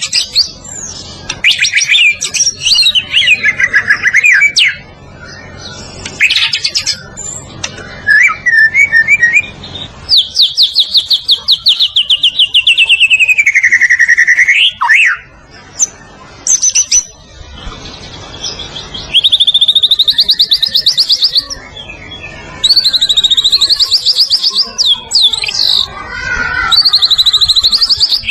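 White-rumped shama (murai batu) singing loudly, with varied whistled phrases and long rapid trills. About ten seconds in, one long trill slides down in pitch, and later phrases rise.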